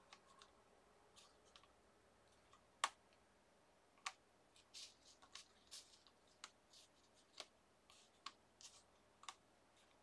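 Faint, scattered clicks and taps of clear stamps being handled and set down on a stamping platform, with a little soft rustling; about a dozen small clicks, the sharpest about three and four seconds in.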